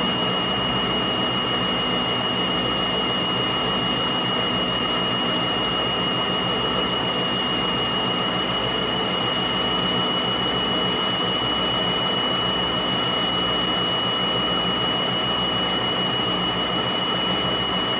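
Metal lathe running steadily with a boring bar working inside the bore of a bullet mold, boring the grooves for the bullet's lands. A constant high whine sits over the machine's running noise.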